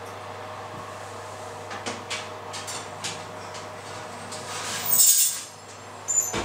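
A loaf tin on a metal wire rack going into a kitchen oven: light metal clicks and knocks, then a louder rough scrape about five seconds in and a sharp clack near the end, over a steady low hum.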